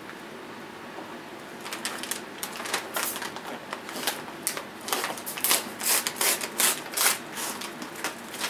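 Thin wooden kindling sticks clicking and snapping in the hands: an irregular series of sharp cracks, thickest about five to seven seconds in.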